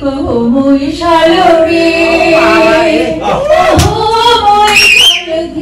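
Singing: the opening of a Bengali Bhawaiya folk song, a voice holding long, wavering notes, with a high gliding note near the end.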